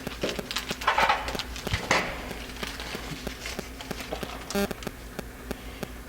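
Small carburetor rebuild-kit parts being handled on a workbench: scattered light clicks and taps, with two rustling bursts about one and two seconds in as parts are pulled from the kit packaging. A brief pitched squeak comes near the end.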